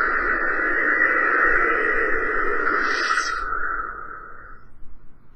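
Lightsaber sound board (Nano Biscotti v4) humming through the hilt speaker, then powering down: a brief higher burst about three seconds in, and the hum fades out over the next second or so.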